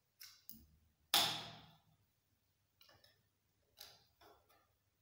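Small piece of sheet steel being set down and handled on a steel workbench top: a sharp clank about a second in, then several lighter taps and clicks.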